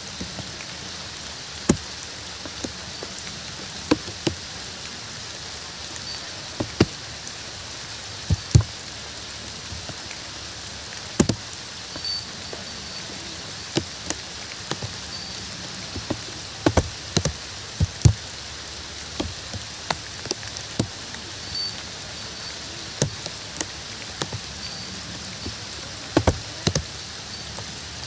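Steady rain hissing, with heavy drops striking close by at irregular intervals, a few of them several times a second in small clusters.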